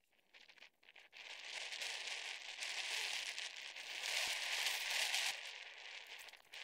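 Hand rubbing paper-backed transfer lettering onto a boat hull: a dry rustling and crinkling of the paper that starts about a second in, holds for a few seconds and tails off near the end.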